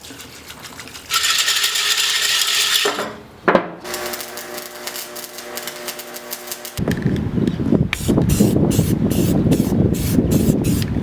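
Metalworking tools in several short stretches: a harsh hissing stretch, a sharp clank about three and a half seconds in, a steady hum, then a louder rough, rattling machine noise from about seven seconds in.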